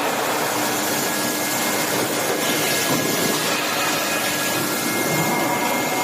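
Steady machinery noise of a forging shop, an even rush with a few faint whining tones and no press blows.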